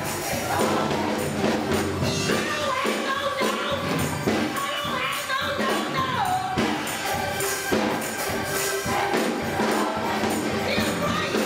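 Gospel choir singing with a tambourine shaking in time.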